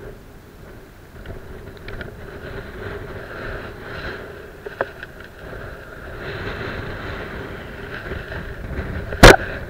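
Steady wind and sea noise buffeting a rod-mounted camera's microphone, with a small click about five seconds in and one sharp, loud knock near the end.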